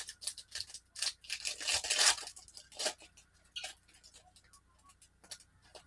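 Wrapper of a Donruss baseball card pack being torn open and crinkled, with the cards rustling as they slide out. The tearing and crackling are densest in the first three seconds, then thin out to a few light ticks.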